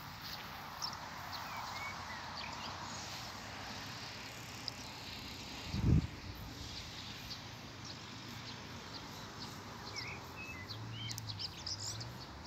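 Open-air countryside ambience: a steady faint hiss with a few small bird chirps, twice in brief clusters. A single low thump about six seconds in.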